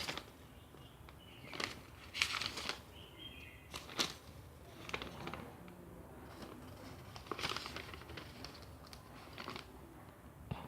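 Pages of a paper instruction booklet being turned and leafed through: short papery rustles every second or two.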